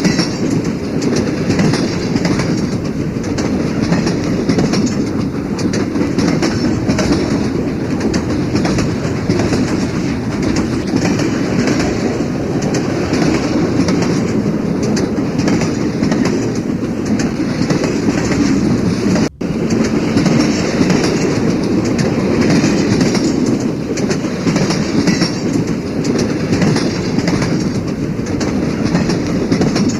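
Railway carriage wheels clacking over rail joints: a loud, steady running rumble with rapid clicks. The sound drops out for a split second about two-thirds of the way through.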